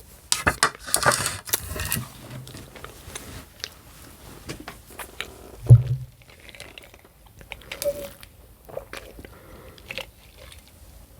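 A person eating close to the microphone: biting and chewing, with scattered clicks and a busy patch of noisy bursts in the first two seconds. There is one loud low thump a little before halfway.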